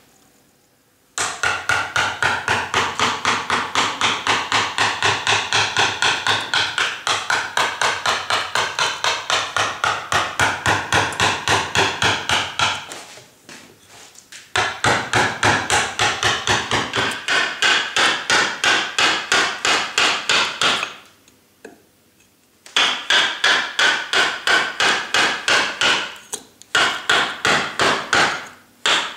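Carving gouge driven into a limewood block by quick, even mallet taps, about four a second, in long runs broken by a few short pauses.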